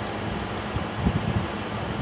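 Frigidaire FFRA051WAE 5,000 BTU window air conditioner running, its fan blowing a steady rush of air with a low, uneven flutter of air buffeting the microphone.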